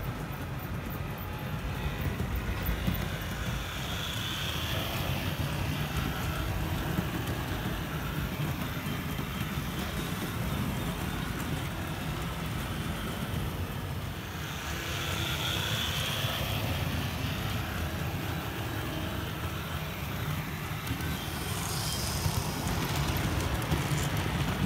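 Model train running on a layout: a steady rumble and whir of wheels on metal track and the locomotive's motor, a little louder near the end as the train passes close.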